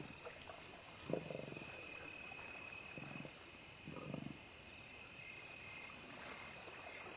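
Lions growling at a kill in short low bursts, about four times, over a steady chorus of night insects.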